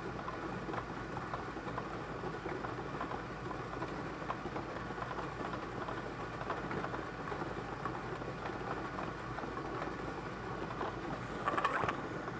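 Air-mix bingo ball machine running: a steady rush of blown air with the balls rattling and clicking as they tumble. Near the end there is a louder brief clatter as the next ball comes up.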